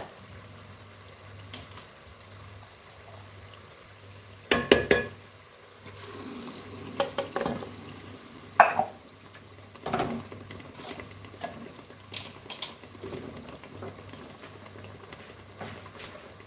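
Tomato stew base sizzling gently in an aluminium pot, with scattered knocks and clatters of the wooden spoon and food against the pot. The loudest cluster of knocks comes about four to five seconds in.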